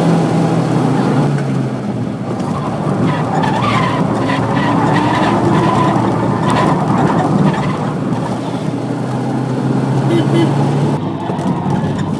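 Engine and road noise of cars running hard on a race track, heard from inside a following car, with tyres skidding from the BMW E36 M3 drifting ahead.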